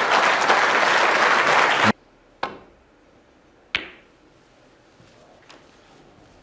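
Snooker crowd applauding, cutting off suddenly about two seconds in. Then two sharp clicks of snooker balls being struck, about a second and a half apart.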